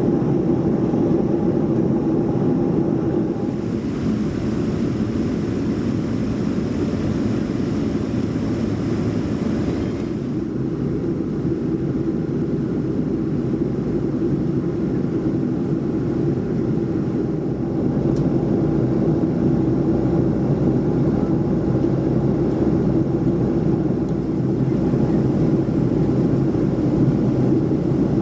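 Steady cabin drone of a Boeing 737-400 in flight, heard from inside the cabin. It is the CFM56-3 engines and the rushing airflow, a continuous low rumble with a steady hum. A little more hiss comes in between about 3 and 10 seconds in.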